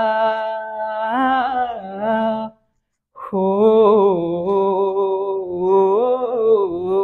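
A man humming the tune of a song's instrumental passage in long, held notes with a slight waver. The first phrase stops about two and a half seconds in, and a second begins about half a second later.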